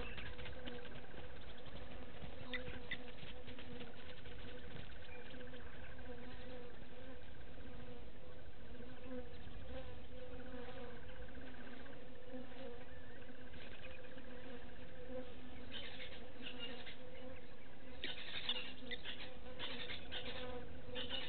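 Insects buzzing: a steady, wavering low drone with a finely pulsed, higher trill over it. About three-quarters of the way through, a run of sharp high clicks or chirps joins in.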